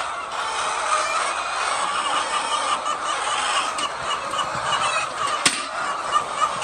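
A flock of poultry calling continuously, many birds overlapping in a dense chatter. A sharp click about five and a half seconds in.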